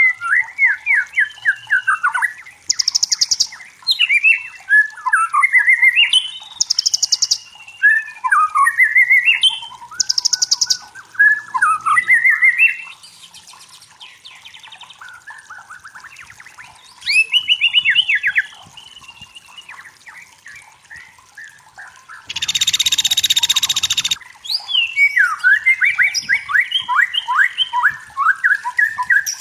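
White-rumped shama singing: varied phrases of quick whistled notes and trills sweeping up and down, in runs separated by short pauses. About three-quarters of the way through, a loud hissing burst of about two seconds cuts in.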